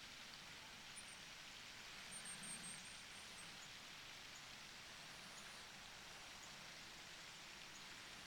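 Near silence: a faint steady hiss, with a few very faint high ticks.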